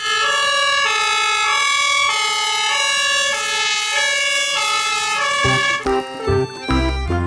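Multi-tone horn sounding several notes at once, stepping through a pattern of pitches about twice a second for about five seconds, then a few short knocks.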